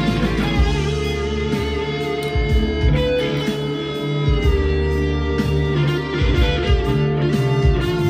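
PRS 245 electric guitar with humbucking pickups, played through a high-gain distorted tone: an up-tempo riff of held low notes that stop and restart several times, with higher notes ringing above.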